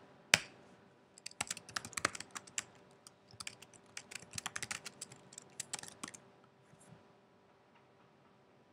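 Typing on a computer keyboard: a single sharp click about a third of a second in, then a quick, uneven run of key clicks lasting about five seconds.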